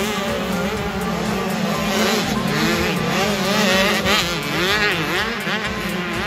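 Several 85cc two-stroke motocross bike engines revving, their overlapping pitches rising and falling.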